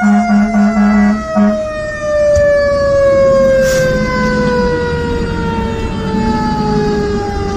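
Fire engine's Federal Q mechanical siren winding down, its wail falling slowly and steadily in pitch, with a rapid string of short horn blasts over the first second and a half. Heard from inside the cab over the truck's engine and road rumble.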